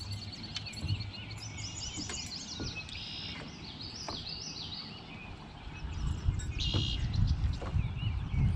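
Songbirds chirping and singing in many short, high, warbling phrases over a low rumble of wind, which grows louder after about six seconds.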